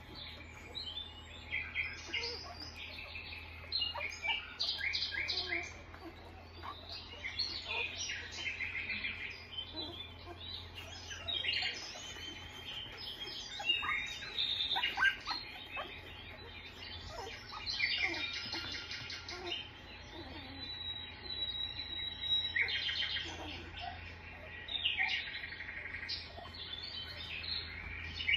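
Newborn Australian Shepherd puppies squeaking while they nurse: many short, high-pitched squeaks in quick runs, over a low steady hum.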